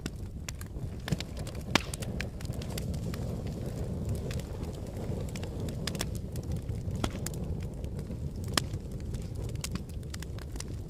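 Wood logs burning in a fireplace: a steady low rush of flames with scattered sharp crackles and pops, a few of them louder.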